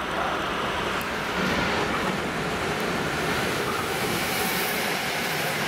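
Freight train hauled by two electric locomotives approaching and passing at speed with a long string of hopper wagons: a steady rumble and rail noise. The hiss of the wheels on the rails grows brighter as the locomotives go by about four seconds in.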